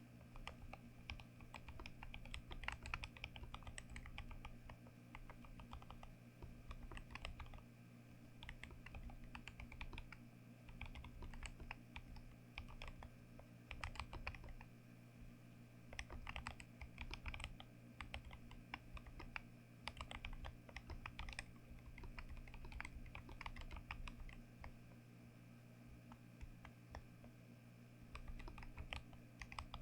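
Typing on a mechanical keyboard with deep, thocky keystrokes. The keys go in quick runs broken by short pauses.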